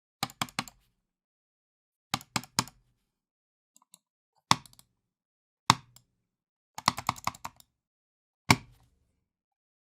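Computer mouse handled angrily: hard, sharp clicks and knocks in groups. First a quick run of four, then three, then single heavy strikes, then a rapid flurry of about ten, and one last hard click near the end.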